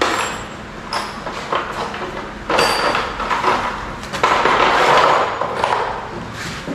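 Handling of building materials and tools: a series of knocks, clatters and scraping noises with a couple of brief metallic clinks, the longest scrape about four seconds in.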